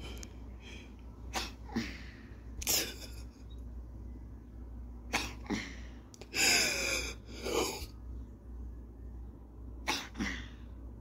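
A dying elderly cat's gasps for air: short, sharp, irregular gasps, with a longer, louder one about six and a half seconds in that carries a falling moan. These are the laboured, agonal breaths of a cat whose organs are shutting down.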